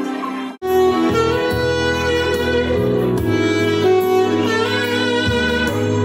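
Saxophone playing a slow melody over arranger-keyboard backing with sustained bass notes. About half a second in, the previous tune cuts off abruptly and the new piece begins.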